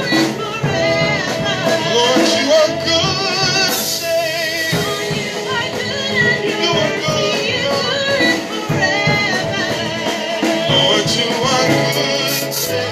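Gospel worship music with a singer over a full band of drums and instruments.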